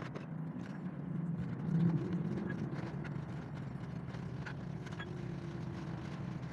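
Kitchen knife cutting a tomato, the blade knocking now and then on a plastic cutting board, over a steady low hum.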